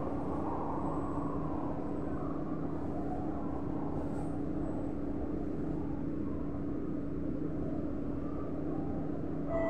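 Kawasaki-Sifang C151B metro train standing at a platform with its doors open: the steady hum and whirr of its onboard equipment and ventilation, with a low steady tone running through it. Right at the end, a bell-like door chime starts.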